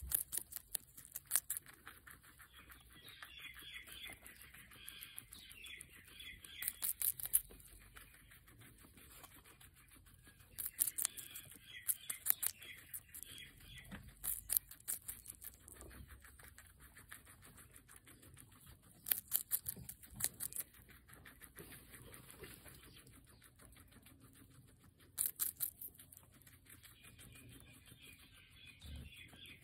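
Guinea pig biting and chewing a strip of red bell pepper (capsicum): clusters of sharp crunches come every few seconds, with quieter chewing between them.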